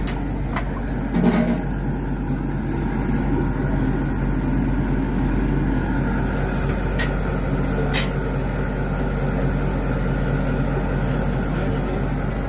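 Steady hum and hiss of a commercial gas char grill cooking beef burger patties, with a brief louder burst about a second in and a few sharp metal clicks.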